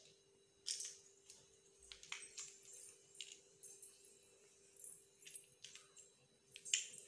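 Faint handling noises: a scattering of light clicks and rustles, the loudest one near the end, over a faint steady hum.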